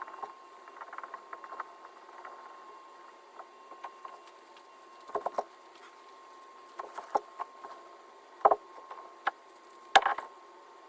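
Clay slabs and hand tools worked on a table while building a leather-hard slab box: a run of quick light clicks at first, then a few separate knocks, the loudest about ten seconds in, over a faint steady tone.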